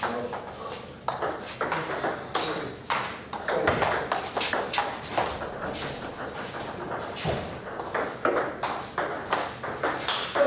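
Table tennis ball clicking off rubber bats and bouncing on the table, a run of sharp ticks.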